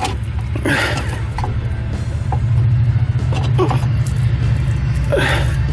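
Lawn tractor engine running steadily in the background, a constant low drone. A man grunts with effort over it, about a second in and again near the end.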